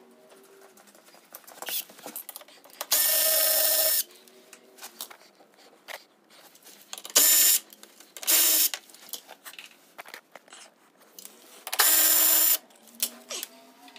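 Cordless power tool run in four short bursts of about a second each, spinning out the bolts holding an underbody panel, with light handling clatter in between.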